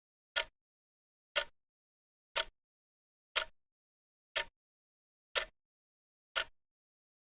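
Clock ticking once a second, seven short, sharp ticks with dead silence between, counting down the seconds of a timer.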